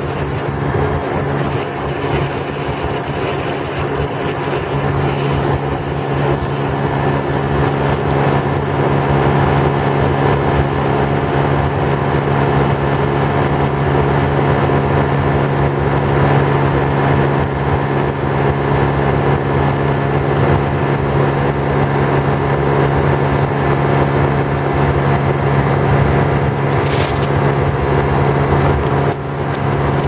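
Ultralight aircraft's engine and propeller droning steadily in flight at an even pitch, with wind rushing over the microphone.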